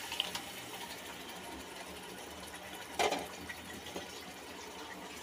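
Wet green masala paste poured into hot oil in an aluminium pot, sizzling steadily, with a brief knock about three seconds in.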